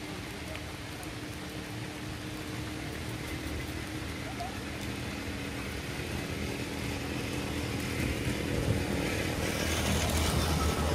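Rain falling steadily on puddles and wet ground, getting heavier and louder from about eight seconds in. A faint, low, steady engine hum lies under it during the first several seconds.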